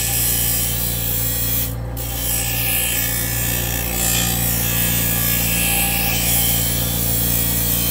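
Bench grinder's electric motor running with a steady hum while a dull steel kitchen knife is pressed against the spinning grinding wheel, giving a grinding hiss that breaks off briefly about two seconds in.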